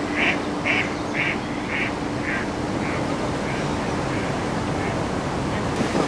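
A duck quacking in a run of evenly spaced quacks, about two a second, growing fainter and dying away. A steady low hum and an even hiss sit beneath.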